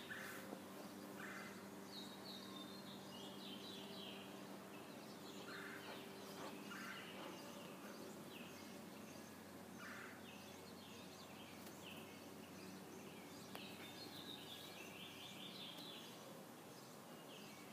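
Birds chirping and singing in short high phrases every second or two, over a faint steady low hum.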